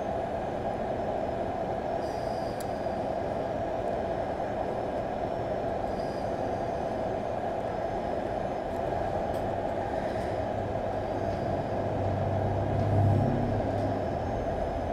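Hot air rework station blowing a steady rush of air, with a low hum that swells briefly near the end.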